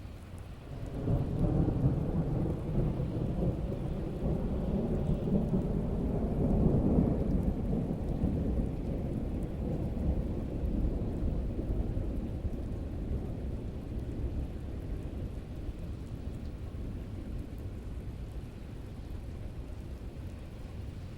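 Rain falling steadily with a long roll of thunder: the rumble swells about a second in, peaks about seven seconds in, then slowly dies away under the rain.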